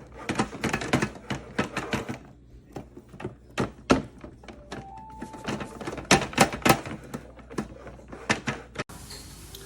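A quick, irregular run of sharp clicks and knocks, with a brief two-step rising beep about five seconds in.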